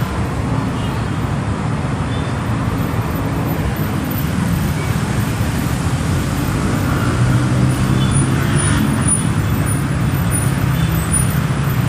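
Steady road traffic: the running engines and tyres of passing cars and buses, with a heavier vehicle growing louder from about seven seconds in.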